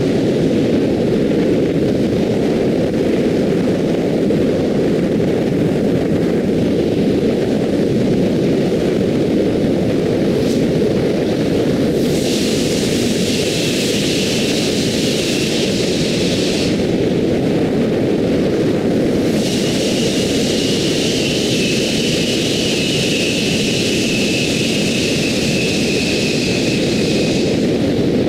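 Car driving at expressway speed: steady wind rush and tyre road noise. A brighter hiss joins in from about twelve to seventeen seconds in, and again from about twenty seconds in until just before the end, the second stretch carrying a faint, slowly falling whine.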